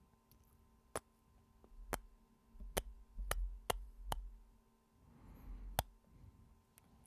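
Close-miked kisses: a series of about seven sharp lip smacks, most of them in quick succession in the middle, with a soft breathy rush just before the last one.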